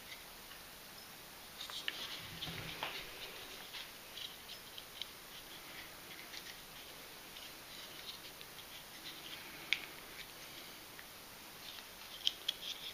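Handling noise from a SOG Trident folding knife being worked in the hands: faint, scattered clicks and light scrapes of its parts as the closed knife is fiddled with, a cluster of them about two seconds in, one sharper click near ten seconds and a few more near the end.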